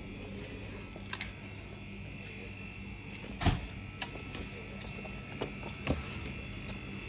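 Footsteps and knocks from handling a phone camera while walking along a garden path: a few scattered thumps, the loudest about halfway through, over a steady faint hum.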